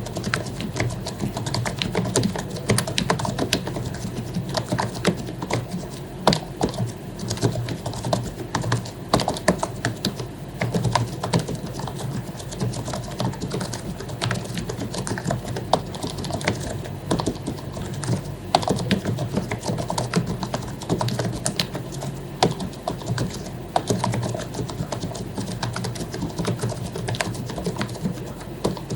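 Continuous fast typing on an HP membrane keyboard with lubricated keycaps: a dense, irregular patter of key clicks over a low steady hum.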